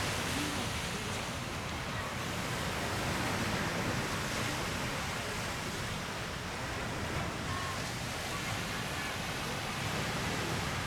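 Sea waves breaking on a beach, a steady wash of noise that swells and eases slightly.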